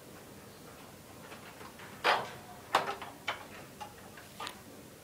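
A handful of sharp, short clicks and knocks, about five of them at slightly uneven spacing, starting about two seconds in over a quiet background.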